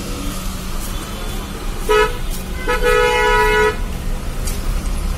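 A car horn sounds twice, a short toot and then a steady blast of about a second.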